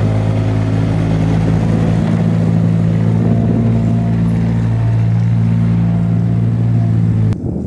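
Steady engine-like hum with a stack of even low tones that hold one pitch throughout, cutting off abruptly near the end.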